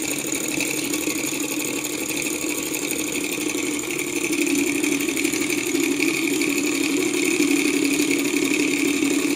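Small alcohol-fired Stirling engine with a propeller running steadily, a fast mechanical chatter with the whir of the spinning propeller, growing a little louder about halfway through.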